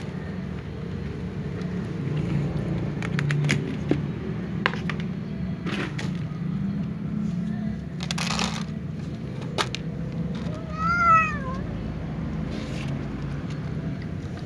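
A cat meows once, a short call that rises then falls in pitch, about eleven seconds in, over a steady low hum. Before it come scattered small clicks and a brief rustle as dry cat kibble is handled and put down.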